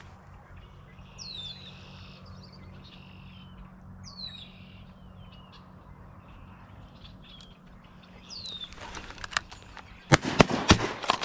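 Ducks giving short, high, falling squeals several times over a low steady hum. About ten seconds in, a quick string of sharp shotgun blasts, the loudest thing heard.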